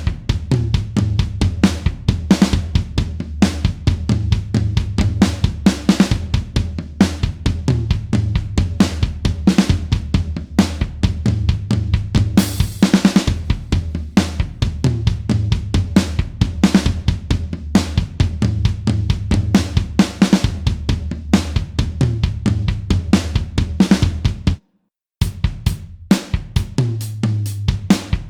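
Rock drum kit playing a busy beat of kick, snare and hi-hat, with a cymbal crash ringing about halfway through. It stops dead for half a second near the end, and a new rock drum beat starts.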